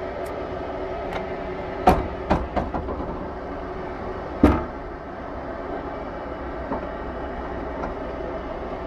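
A steady engine drone, broken by a sharp bang about two seconds in, a quick run of smaller knocks right after, and one more loud bang about four and a half seconds in.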